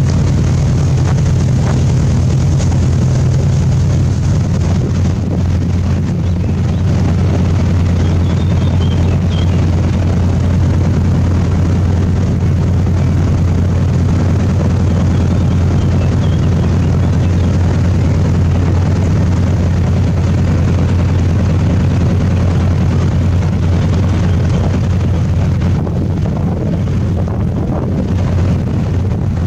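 Boat engine running steadily under way, a loud, constant low drone that does not change through the whole passage.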